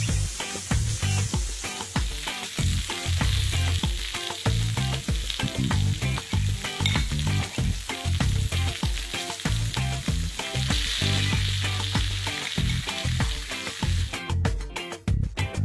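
A hot cast-iron grill pan of cauliflower rice sizzling, over background music with a steady beat. The sizzle stops about fourteen seconds in, and the music carries on.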